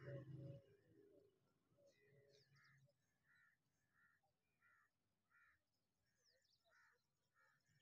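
Faint outdoor birdsong: one bird gives a short call over and over, about every two-thirds of a second, with faint high chirps from other birds. A low, pitched sound fades out over the first two seconds.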